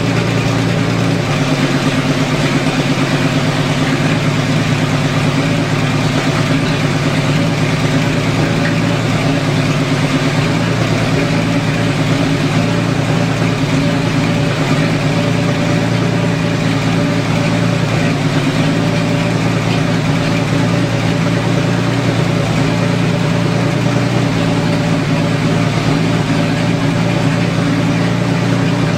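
AMC 258 (4.2 L) inline-six engine idling steadily through a straight-pipe exhaust.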